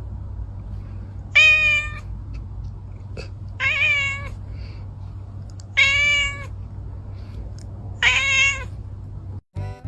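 Domestic cat meowing four times, about two seconds apart, each meow a drawn-out call of about half a second, over a steady low hum.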